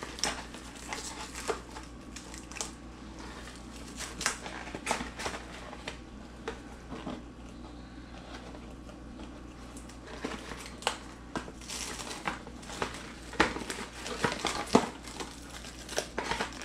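Cheap plastic cling wrap being pulled from its box and handled, crinkling with scattered crackles and snaps that come thicker in the second half.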